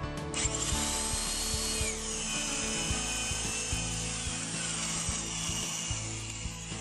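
Power drill boring into wood through a jig's drill bushing, starting about half a second in with a steady whine that drops slightly in pitch as the bit bites. Background music plays underneath.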